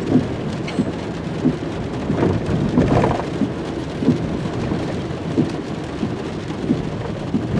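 Rain falling on a moving car, heard from inside the cabin as a steady low rumble of road and rain noise with scattered drop ticks.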